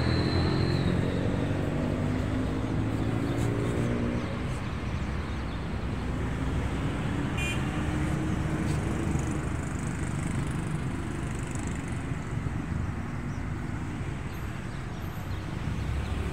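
Road traffic: vehicle engines running past, one rising in pitch as it speeds up over the first few seconds.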